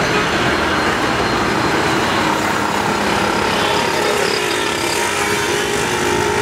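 Steady road traffic noise with passing vehicles, including motorcycles.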